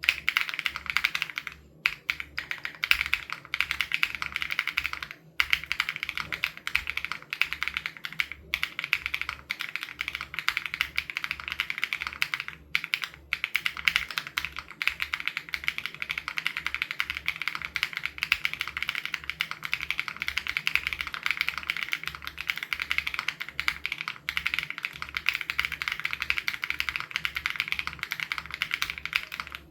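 Continuous fast typing on a custom SPM AL87B mechanical keyboard with BSUN Raw switches, a dense run of keystroke clicks with a few brief pauses.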